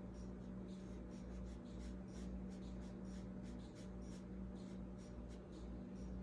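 Watercolour brush dabbing and dragging on paper in short, irregular strokes, several a second, over a steady low hum.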